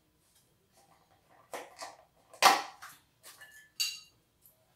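Scattered knocks and clinks of a table knife, plates and a plastic butter tub on a kitchen table as butter is spread on a bread roll. The loudest, a sharp knock, comes about halfway, and a short ringing clink comes near the end.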